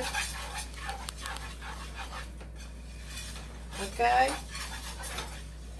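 Metal utensil scraping and clinking against a stainless steel skillet as a flour roux for gravy is stirred.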